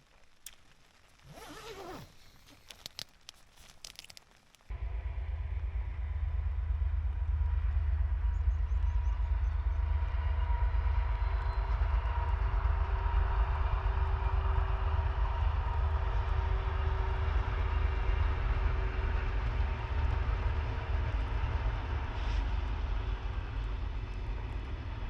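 Diesel-hauled sleeper train passing on the West Highland line: a loud, steady rumble with a few steady engine tones, starting abruptly about five seconds in after some faint rustling.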